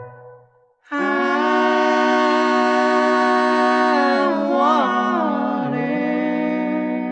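Bluegrass gospel recording: the banjo-led band stops, and after a brief pause a group of voices holds one long harmony chord, with one voice sliding near the middle. The chord cuts off just before the band comes back in.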